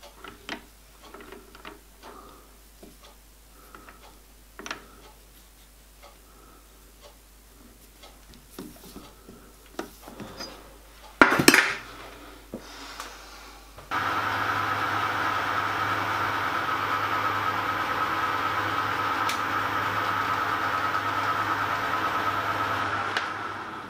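Metal clinks and taps as a piston blank is handled and clamped in a lathe's three-jaw chuck, with one loud clatter about eleven seconds in. From about fourteen seconds the lathe runs with a steady hum and whine, fading just before the end.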